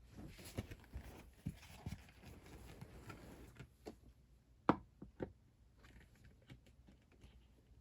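Scattered clicks and knocks of a box fan's parts being handled and fitted together by hand, the loudest knock about five seconds in.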